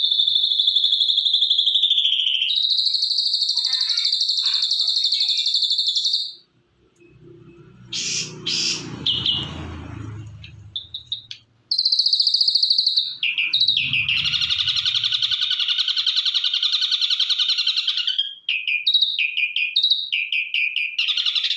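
Ashy drongo singing: long, buzzy high-pitched notes each held for several seconds, then a run of short, quick notes near the end. A low rumble sounds briefly in the quieter middle stretch.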